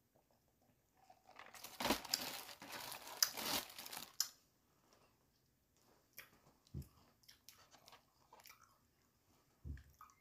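Close-up crunching and chewing of crispy fried chicken, loudest and densest for a couple of seconds near the start, then quieter chewing with scattered small clicks and two soft low thumps.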